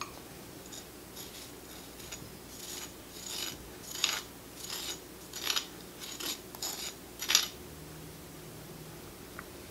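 Freeze-dried strawberry powder being scraped out of a small stone bowl with a utensil and dropped into melted white chocolate: a series of short dry scrapes and taps, uneven in spacing, stopping a couple of seconds before the end.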